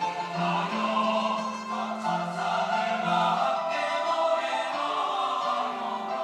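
Church choir singing a sacred anthem in several parts, with held chords and a moving bass line.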